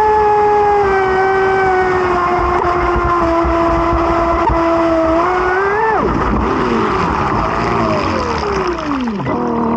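RC boat's motor running at a steady high pitch. Just before six seconds in it rises briefly, then drops sharply as it slows, and several more downward slides in pitch follow.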